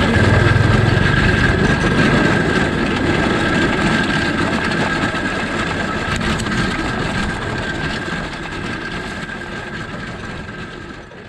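Go-kart engine running as the kart drives along, picked up close by a camera mounted on the kart, with a steady high whine over it. The sound fades out gradually over the second half.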